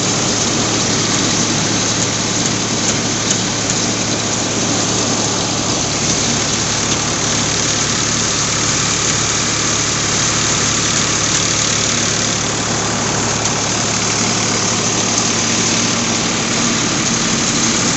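Rice huller and polisher running, belt-driven by a Swaraj 735 FE tractor's three-cylinder diesel engine working under load. The sound is a steady drone with a constant low hum under a dense, even hiss of the machine and grain.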